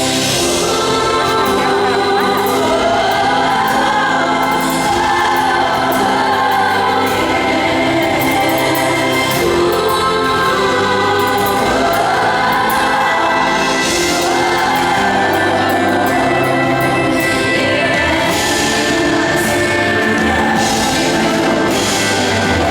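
Female pop singer singing a slow ballad live, with held, gliding vocal lines over sustained instrumental accompaniment.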